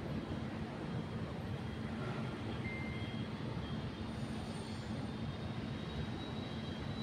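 Steady low rumble of city street traffic with a constant hum underneath.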